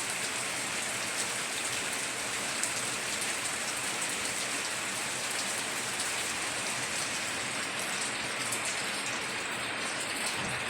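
Heavy rain falling steadily on a tiled roof, an even hiss with faint scattered drop ticks.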